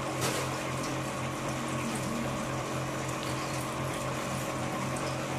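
Aquarium filter pump running steadily: a low motor hum under a constant wash of moving water.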